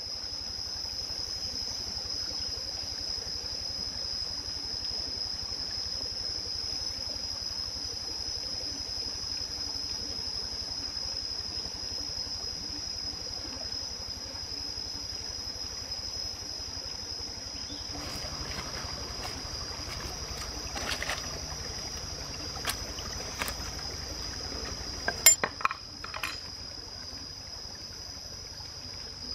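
Stream trickling over rocks under a steady high-pitched drone. In the last ten seconds come scattered clicks and knocks of basketware and utensils being handled on the stones, the loudest few close together near the end.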